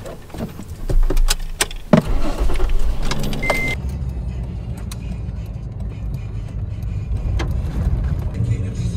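Toyota Tacoma pickup heard from inside the cab: a few clicks and the engine starting about a second in, a short beep, then steady engine and road noise as the truck drives.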